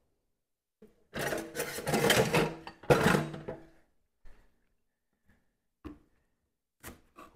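About two seconds of kitchen utensils clattering and rattling as a knife is fetched, then a few single knocks of a chef's knife cutting an onion on a wooden cutting board near the end.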